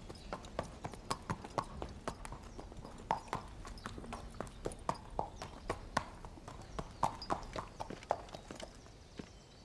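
Horse hooves clip-clopping at a walk: an uneven run of hard knocks, several a second.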